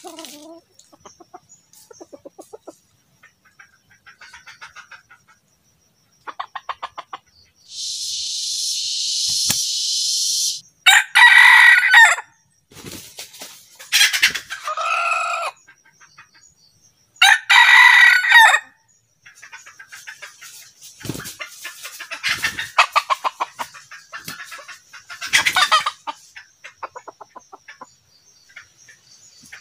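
Red junglefowl rooster crowing three times, each crow a little over a second long and about three seconds apart, with soft clucking before and a long run of quick clucks afterwards. A loud steady hiss lasts about three seconds just before the first crow.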